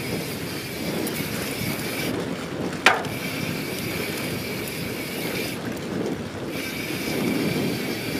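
YT Jeffsy 27 mountain bike on a dirt trail: the rear freehub buzzes steadily while coasting and goes quiet twice for about a second while pedaling, over tyre rumble and wind on the microphone. A single sharp knock about three seconds in.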